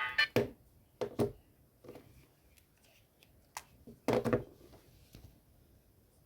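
A few scattered clicks and taps of handling noise, with a louder cluster about four seconds in, over a quiet background.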